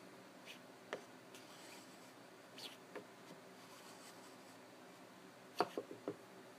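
A wheel marking gauge scribing a baseline across a thin board: faint scratching of the cutter on the wood, with a few light clicks. Near the end there are three quick sharp knocks as the metal gauge is set down on the wooden bench.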